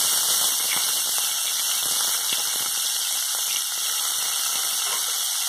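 Freshly added chopped onions sizzling steadily in hot mustard oil in a kadhai.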